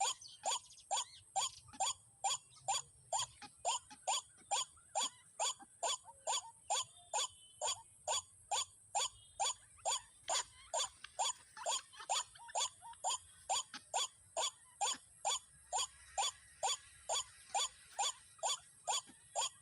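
White-breasted waterhen (dahuk) calling: the same short 'kook' note repeated evenly, about two and a half times a second, without a break.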